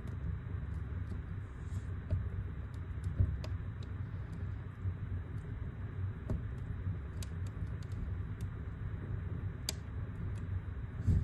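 Wood fire burning in a fireplace, crackling: irregular sharp pops and snaps of the burning logs over a low, steady rumble of the flames, with a slightly stronger pop about three seconds in and another near the end.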